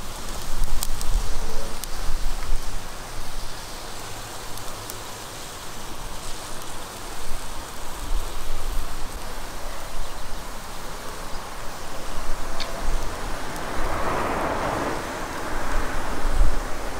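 Skewered minced-chicken kebabs sizzling over a charcoal grill: a steady hiss with faint crackles, under the low rumble of wind buffeting the microphone, which swells louder about fourteen seconds in.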